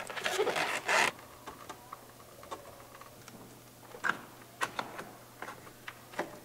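Plastic A-pillar trim panel with a gauge pod being pressed into place: rubbing and scraping for about the first second, then several short, sharp plastic clicks.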